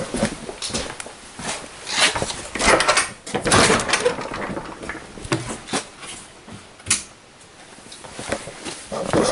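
Handling noise from a camera being carried and moved around: a run of irregular knocks, clicks and rustles, quieter for a moment near the end.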